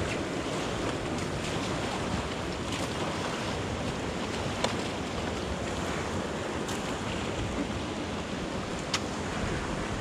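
Fast river water rushing past an inflatable raft, mixed with wind noise on the action camera's microphone. Two brief sharp knocks stand out, about halfway through and near the end.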